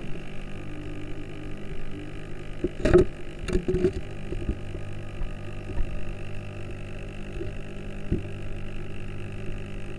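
Steady low electric hum of a Sakkai Pro AA-200 wave maker pump running underwater. A few knocks come around three to four seconds in and once near eight seconds, as the pump is handled and aimed.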